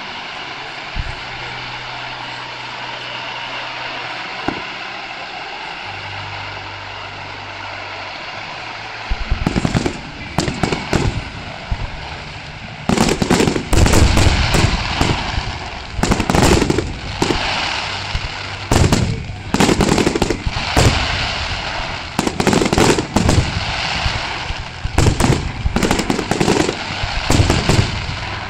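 Aerial fireworks display. There are a few scattered pops over steady background noise at first, then from about nine seconds in a rapid, irregular barrage of shell bursts and crackling. The barrage is loudest and densest from about thirteen seconds on.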